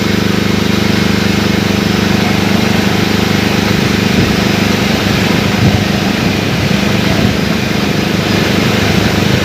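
Agricultural multirotor drone's rotors running with a loud, steady hum while it spreads fertilizer.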